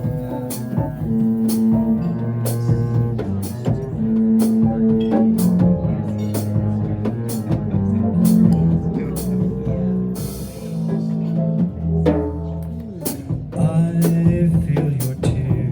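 Live jazz combo playing an instrumental passage of a bossa nova ballad, with upright bass and drum kit keeping time under sustained chords.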